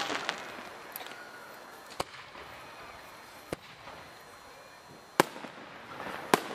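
Aerial firework shells bursting: four sharp bangs a second or two apart, the last two loudest, after a hiss that dies away in the first second.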